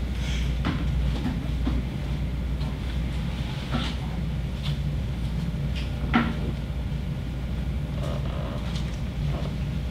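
Handling noise at a lectern: scattered light clicks and knocks, the sharpest about six seconds in, over a steady low hum.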